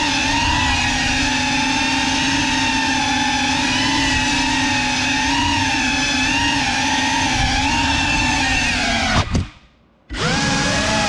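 GEPRC CineLog35 cinewhoop quadcopter's brushless motors and ducted propellers whining as they are throttled up and down in flight, heard close up. About nine seconds in the whine dies away almost to silence, then comes back about a second later with a rising pitch.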